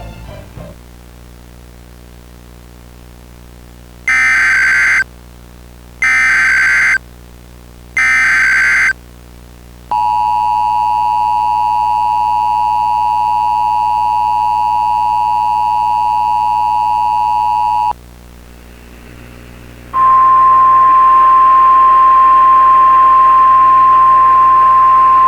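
Emergency Alert System broadcast signals: three short bursts of SAME header data screech, each about a second long and a second apart. Next comes the EAS two-tone attention signal (853 and 960 Hz together), held for about eight seconds. After a brief pause, a single loud steady 1050 Hz NOAA Weather Radio alert tone starts over static.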